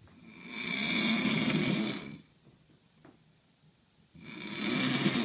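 A man snoring heavily in his sleep: one long snore of about two seconds, a quiet pause, then the next snore beginning about four seconds in.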